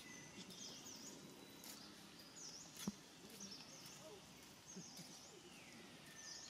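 Faint bird calls repeating about once a second, each a pair of short high chirps with a whistle that falls in pitch. A single sharp click comes near the middle.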